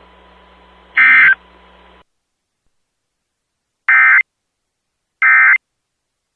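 Emergency Alert System end-of-message data bursts: three short, loud, screechy digital tone bursts, each about a third of a second, one about a second in and two more about four and five seconds in, marking the end of the flood warning. A faint background hiss and hum cuts off about two seconds in.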